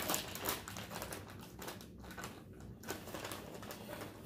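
Rapid, irregular crackling and clicking from drizzled kettle corn being handled and eaten out of its snack bag.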